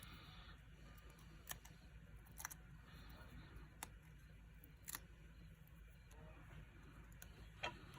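Near silence with a few faint, scattered clicks and light rustles of paper craft pieces and foam adhesive dimensionals being handled on the work surface.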